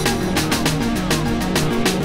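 Electronic background music with a steady fast drum beat, about four hits a second, over a repeating bass line.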